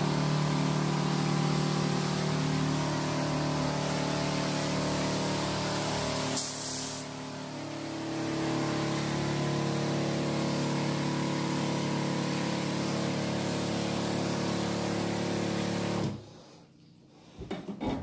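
Battery-powered knapsack sprayer running: the pump motor hums steadily under the hiss of liquid sprayed from the lance. The motor dips and changes pitch slightly about halfway through, then cuts off suddenly near the end, followed by a few light knocks.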